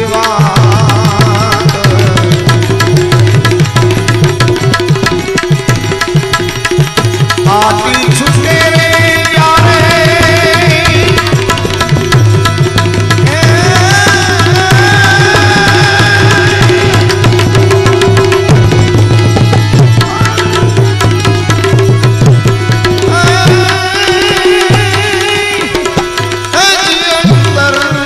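A man singing a Gujarati devotional bhajan into a microphone in long, wavering held notes, accompanied by a harmonium and a steady hand-drum beat.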